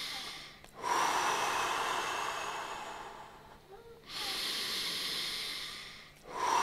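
A person breathing deeply and audibly close to the microphone: slow, full breaths in and out, each lasting two to three seconds with short pauses between them. These are the deep breaths that open a round of Simplified Tummo / TT5 breathing.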